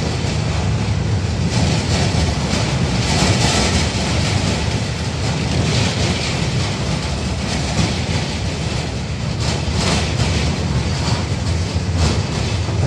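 Inside a 71-605A tram car under way: the steady rumble of wheels on the rails, with scattered short clicks and knocks from the track and the car body.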